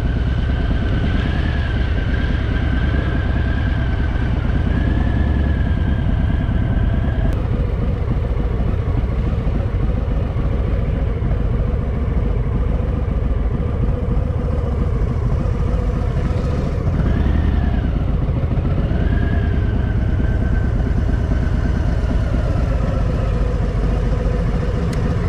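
Harley-Davidson Fat Boy's V-twin engine running steadily at low speed, with a deep rumble.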